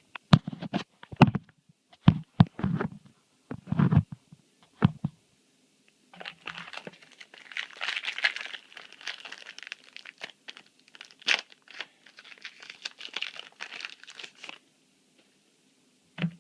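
Yu-Gi-Oh booster pack wrapper being torn open and crinkled, preceded by a few sharp taps and thumps as packs and cards are handled.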